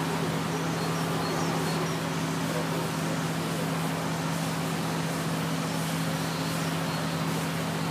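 Vestergaard Elephant Beta de-icing truck running with a steady low drone while its boom nozzle sprays de-icing fluid, an even hiss of spray over it.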